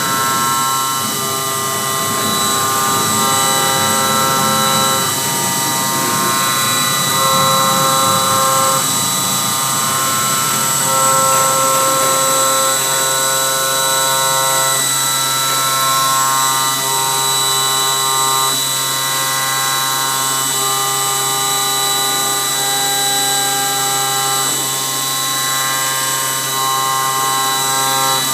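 CNC machine working a bra pattern, its motors whining in steady tones that jump to new pitches every second or two as the head changes speed and direction, over a constant high whine and hum.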